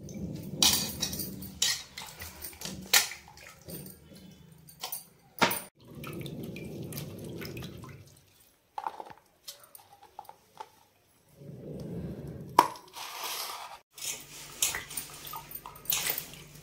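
Vegetables being washed by hand in a steel pot of water, with splashing and dripping, broken by sharp clinks and knocks of steel utensils. The sound changes abruptly several times, as short takes follow one another.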